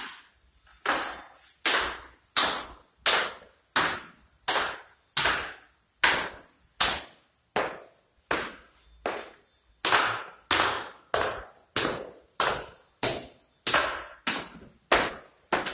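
Footsteps going down a stairwell and along a hard corridor floor, about one and a half steps a second, each step echoing in the empty building.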